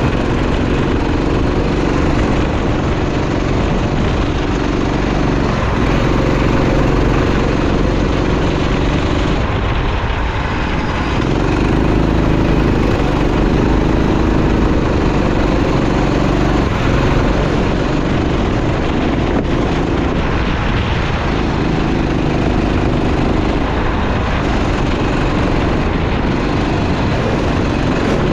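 Go-kart engine running hard, its pitch repeatedly climbing and then dropping away, over a steady hiss.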